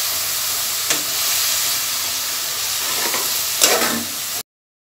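Roasted vermicelli sizzling in a hot frying pan as the sugar and water just added to it are stirred in with a metal spatula, with two sharper scrapes, about a second in and near the end. The sound cuts off suddenly shortly before the end.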